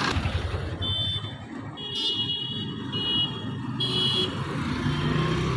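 Maruti Suzuki Swift engine running with a rapid low pulsing beat; the car has a misfire and engine-sound problem that its injectors are suspected of. A high electronic beep sounds over it, switching on and off about once a second.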